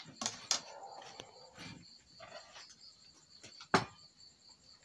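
Crickets chirping steadily in the background, with scattered clinks of spoons and chopsticks against ceramic bowls; one sharp clink a little before the end is the loudest sound.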